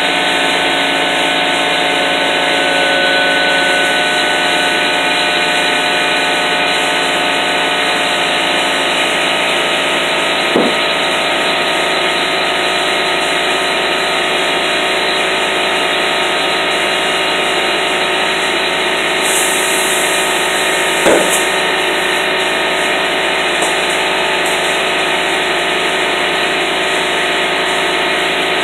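Air compressor running steadily while air is fed through a hose into a truck tire to inflate it, with two brief knocks about ten and twenty-one seconds in.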